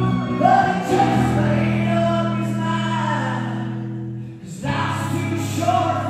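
A live band playing, with singing over held low notes; the music drops out briefly about four seconds in, then a new phrase starts.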